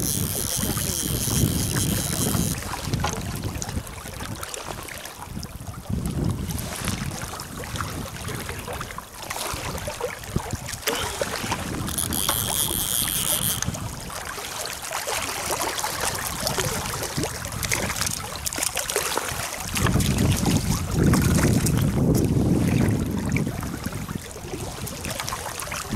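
Wind buffeting the microphone in uneven gusts over the steady rush of river water. There are two short high-pitched buzzes, one at the start and one about twelve seconds in.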